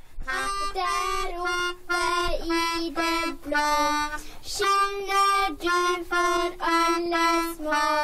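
Melodica playing a simple song melody, one held note after another with short breaks between phrases.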